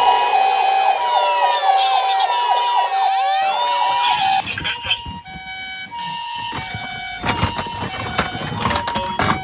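Two-tone hi-lo ambulance siren, the Japanese "pee-po" type, alternating steadily between a higher and a lower note. About halfway through the even alternation breaks up into sparser tones with clicks.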